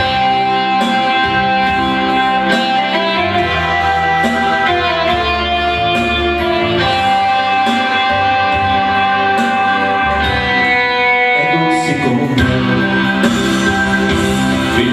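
Instrumental introduction of a song: guitar with sustained keyboard-like notes and a bass line, before the vocals come in.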